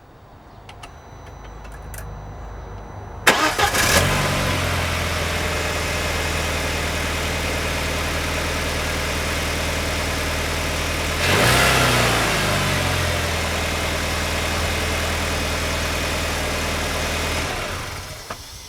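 Audi A4 B6 2.0-litre 20-valve (ALT) inline-four cranked and started, with a brief rattle as it catches, then idling steadily and briefly louder about halfway, before being switched off near the end. The start-up rattle persists although the chain tensioner is new, and the owner asks what causes it.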